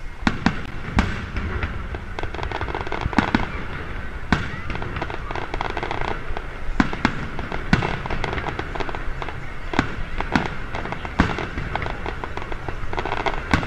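Aerial firework shells bursting in a continuous barrage: sharp bangs every second or so at uneven intervals, with quick runs of crackling between them.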